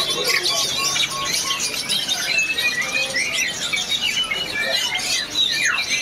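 Many caged songbirds chirping, whistling and squawking over one another in a dense, continuous chorus of short, high calls.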